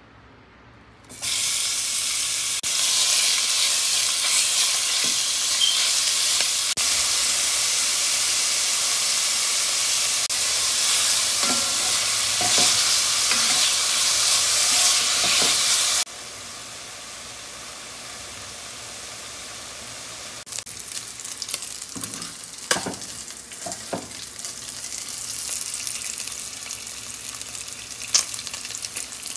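Strips of meat frying in hot oil in a pot, with a sudden loud sizzle starting about a second in as the meat goes in, and stirring with a spatula. Partway through the level drops suddenly to a quieter, steady sizzle, with a few sharp knocks of the spatula against the pot.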